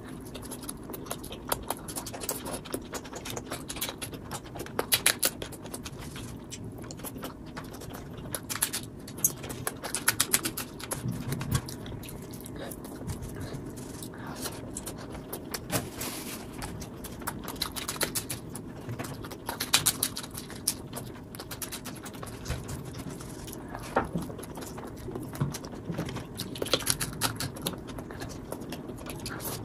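Close-up eating sounds: fingers squishing and mixing rice with curry gravy on a platter, with wet chewing and lip-smacking, a dense run of irregular small clicks and smacks.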